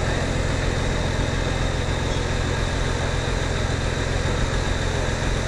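Off-road 4x4's engine running steadily at low revs, holding an even pitch, as the vehicle creeps through deep mud ruts.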